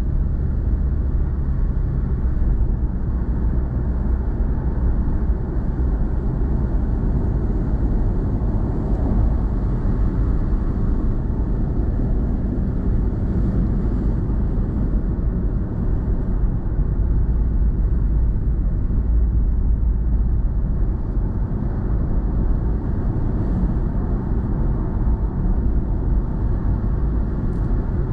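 A moving car's steady low rumble of road and engine noise, heard inside the cabin.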